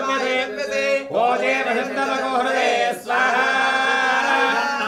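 Sanskrit Vedic mantras chanted in long, held tones during a Hindu fire ritual, broken twice by short pauses for breath.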